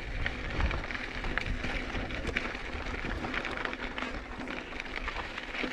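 Mountain bike rolling fast downhill over rocky trail: tyres crunching over rock and gravel, with many short clicks and rattles from the bike, and wind buffeting the microphone with a low rumble.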